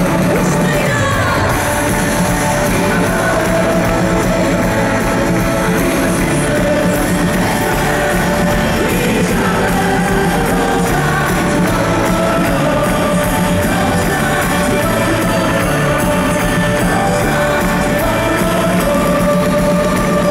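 Live pop-rock band music in a large hall: a singer's amplified voice over guitars and drums, loud and steady throughout.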